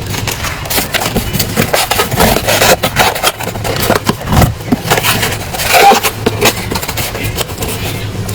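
Packaging being handled and opened by hand: irregular scraping, rustling and tapping over a steady low hum.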